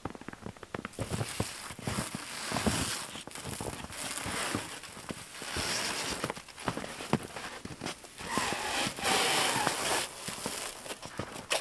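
Plastic stretch film being pulled off a hand roll and wrapped around a wooden frame, crackling in several pulls of one to two seconds each. Short crunches of footsteps in snow fall between the pulls.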